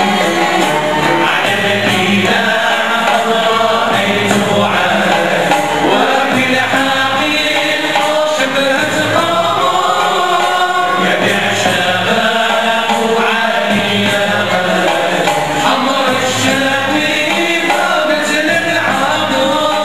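Large Andalusian music orchestra of violins, double bass and plucked string instruments playing, with many voices singing together as a choir.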